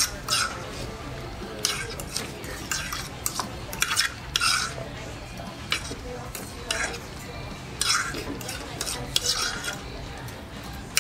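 Metal forks scraping and clicking against large dinner plates in quick, irregular strokes as two people eat fast.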